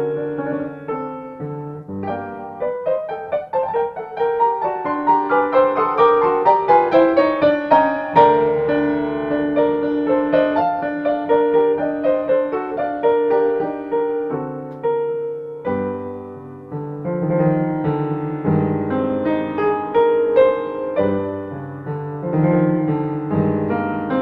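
Solo piano music: a flowing run of struck notes, some held to ring out.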